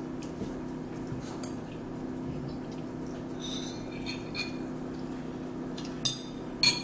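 Forks and spoons clicking and scraping against bowls while people eat, with a few ringing clinks and two sharp clinks near the end, over a steady low hum.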